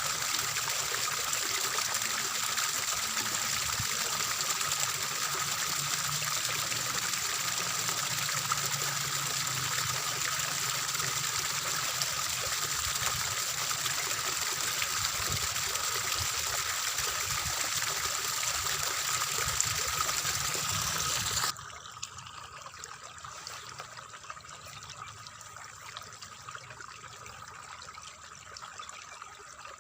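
Water trickling and splashing in a rice field, a steady rush that drops abruptly to a quieter, duller trickle about 21 seconds in.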